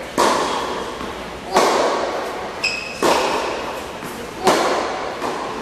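Tennis balls struck by racquets in a baseline rally: four sharp hits about a second and a half apart, each echoing in a large indoor hall. A tennis shoe squeaks on the court about halfway through.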